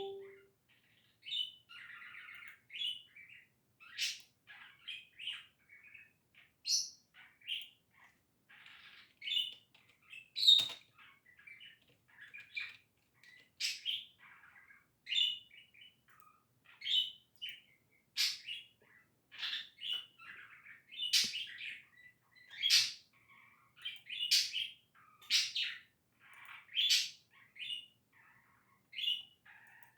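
Pet budgerigar chattering happily: a steady stream of short chirps, warbles and sharp high calls, about one or two a second with brief pauses.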